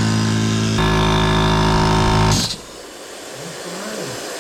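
Air compressor running loudly and steadily, then cutting off about two and a half seconds in with a short burst of air, followed by a steady hiss of air escaping from leaks around its freshly patched hose.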